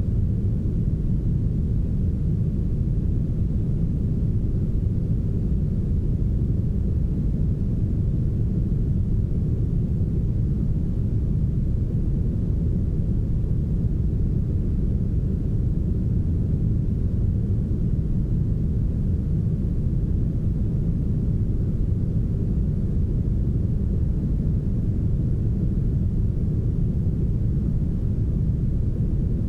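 Soft, smoothed brown noise: a steady, even low rumble with almost all of its energy in the bass and very little treble.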